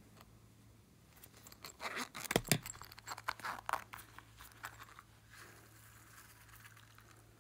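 Zipper of a small silicone coin purse being pulled open: a run of quick ticking rasps and clicks, loudest about two seconds in. A fainter, softer hiss follows as the purse is tipped out.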